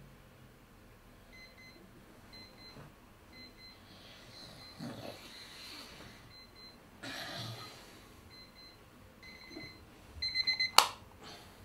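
Electronic alarm clock beeping in short repeated bursts that grow louder, with rustling between them. A sharp knock about ten and a half seconds in cuts the beeping off.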